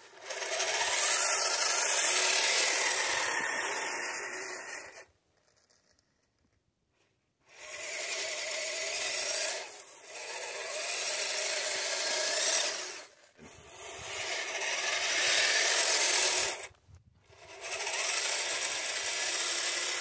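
Kyosho Blizzard RC snowcat's twin Traxxas Titan 380 electric motors whining through the drivetrain as the plastic tracks drive it and push its plow blade through light snow. It runs in four stretches of throttle, with a pause of about two seconds near the quarter mark and two brief drops later.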